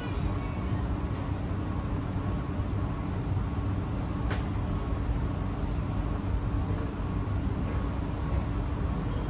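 Steady low rumble of a Kawasaki C151A metro train running between stations, heard from inside the carriage, with a faint steady hum. One sharp click about four seconds in.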